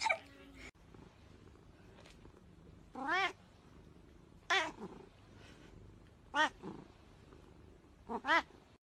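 Domestic cat meowing: five short calls about a second and a half apart, the last two close together.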